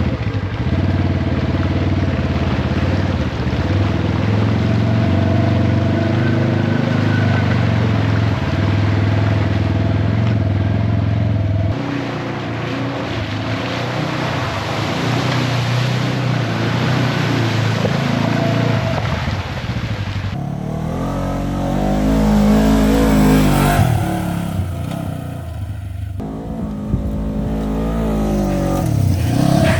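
Off-road vehicle engine running and revving as it drives along a trail, its pitch rising and falling with the throttle. The sound changes abruptly about twelve and twenty seconds in.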